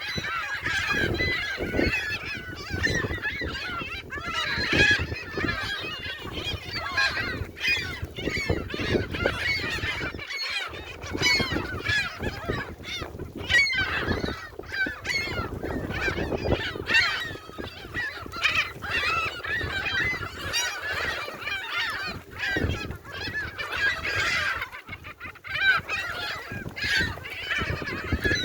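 A flock of gulls calling over one another without pause, many short overlapping squawks as they crowd in for thrown food.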